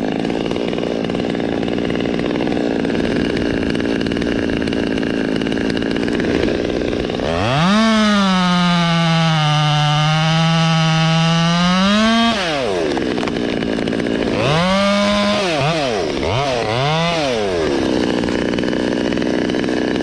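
Stihl 200T two-stroke top-handle chainsaw idling, then held at full throttle for about five seconds, its pitch sagging under the load of a cut and recovering before it drops back to idle. Two short blips of the throttle follow, then it idles again.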